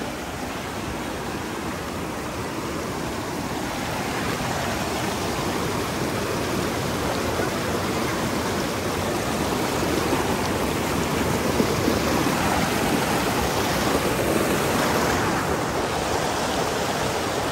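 Steady rush of a mountain river's flowing water, growing somewhat louder over the first half.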